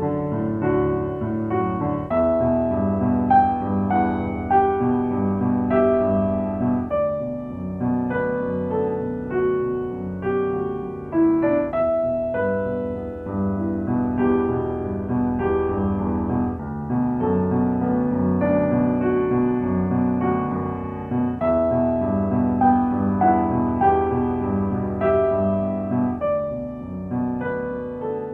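Background piano music: slow, soft melody over sustained chords, fading out near the end.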